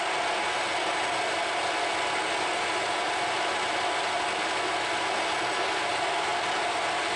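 Metal lathe running under power with a steady whirr of its motor and gears while a tool takes a facing cut, throwing off curled chips.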